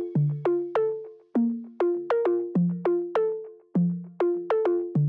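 Background music: a light electronic tune of short notes that fade quickly, over a bass line, in a steady bouncy rhythm.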